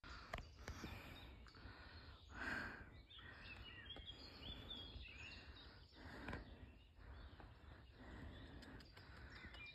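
Faint outdoor ambience with small birds chirping in the distance, with a soft swell of noise about two and a half seconds in and a faint click about six seconds in.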